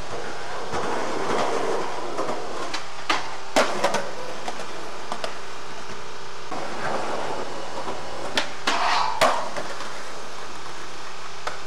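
Skateboard wheels rolling over smooth concrete, with sharp clacks of the board: three a little after three seconds in and three more between eight and nine seconds in.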